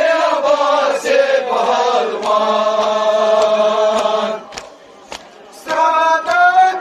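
Group of men chanting a nauha (Muharram lament) together, holding a long line for about four seconds, breaking off for about a second, then starting the next line. Sharp slaps sound now and then, loudest in the pause, fitting hands striking chests.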